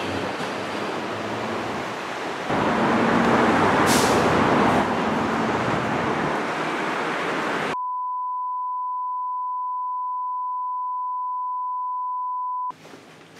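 Steady traffic and vehicle noise that gets suddenly louder about two and a half seconds in. It then cuts off abruptly and gives way to a single steady, pure electronic beep tone lasting about five seconds, which stops suddenly near the end.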